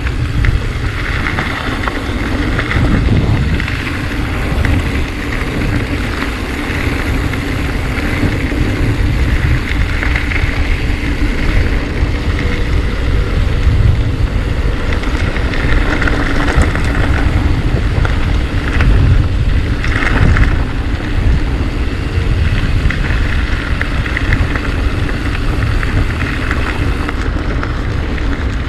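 Wind buffeting the camera microphone and tyre rumble as a mountain bike descends a trail at speed; steady, loud and without a break.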